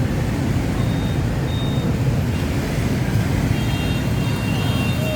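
Yamaha RX-King's single-cylinder two-stroke engine running steadily, a dense, even rumble.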